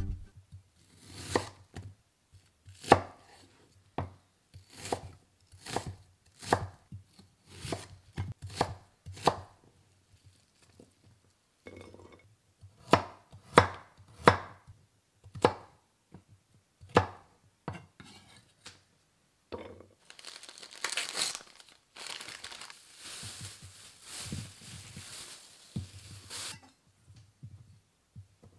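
Chef's knife cutting carrot on a wooden cutting board: separate sharp chops, irregularly spaced at about one a second. Past the middle comes several seconds of continuous scraping noise, then a few softer cuts through chorizo sausage near the end.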